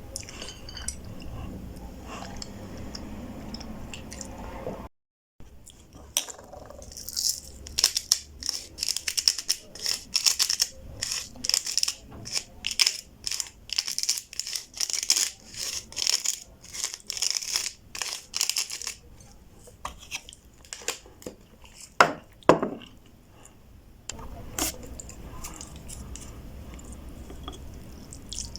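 Close-miked eating, chewing noodles and beef: a dense run of short, sharp wet mouth clicks in its middle part, with a couple of louder clicks after it.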